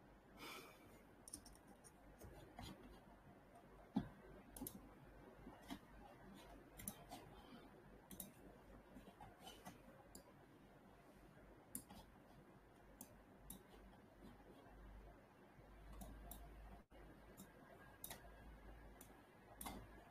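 Near silence: faint room tone with scattered, irregular faint clicks.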